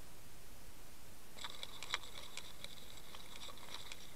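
Underwater camera audio: a steady hiss, and from about a second and a half in, irregular sharp ticks and clicks with a short metallic ring to them.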